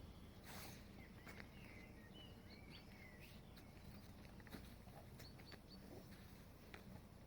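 Near silence: a low steady rumble of background noise with a few faint bird chirps in the first half and scattered faint clicks.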